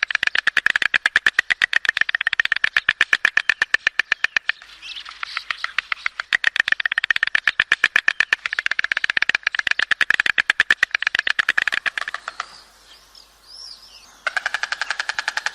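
White stork clattering its bill: long runs of rapid, dry clicks, about a dozen a second, broken by one short pause near the end.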